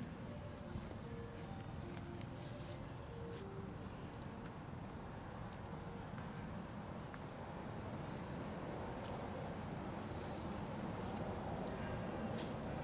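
Insects droning steadily at a high pitch, over a low background hum of outdoor noise.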